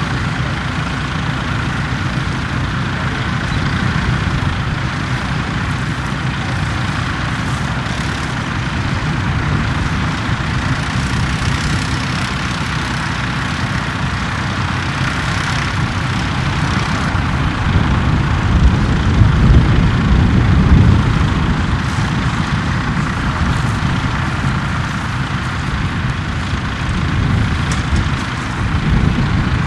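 Tractor engine running steadily, growing louder for a few seconds past the middle.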